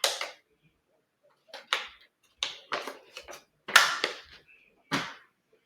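Plastic and paper packaging from a Foley catheter kit crinkling in about seven short bursts as alcohol swab packets are handled and opened, the loudest about four seconds in.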